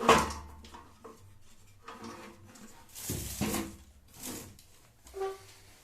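Knocks and clatter of router table parts being handled and set down, loudest at the very start, with a short ringing clink near the end.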